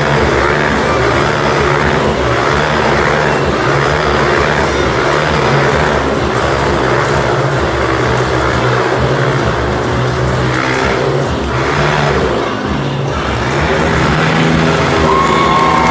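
Motorcycle engine running at high, steady revs as it circles inside a steel-mesh globe of death, with a short easing of the noise about three quarters of the way through.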